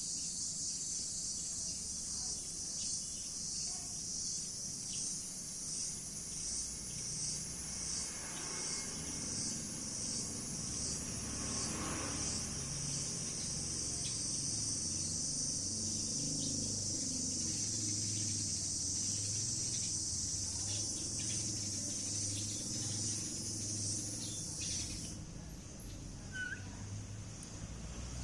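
A high insect chorus that pulses about twice a second at first, then runs steady and cuts off suddenly near the end.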